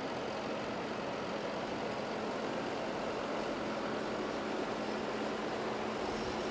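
Fendt tractor's diesel engine running steadily close by, an even drone with a low hum that does not change.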